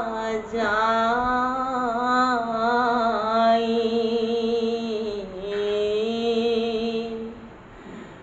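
A man chanting Bhagavat verses in a slow sung melody, drawing out long held notes that bend gently in pitch. The voice dies away near the end.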